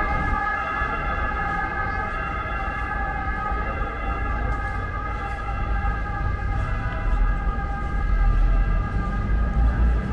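A steady high-pitched whine that holds one pitch without rising or falling, fading away in the second half, over street noise; a low vehicle rumble grows louder near the end.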